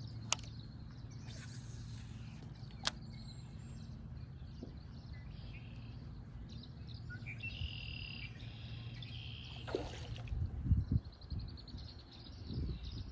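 Birds calling: a short run of chirps about halfway through and a fast trill near the end, over a steady low hum, with two sharp clicks early on.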